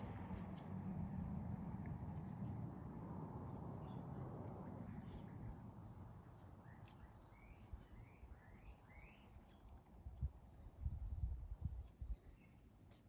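A small bird calling a quick run of about five short rising chirps about halfway through, over a low, steady outdoor noise that fades away during the first half. A few dull low knocks come near the end.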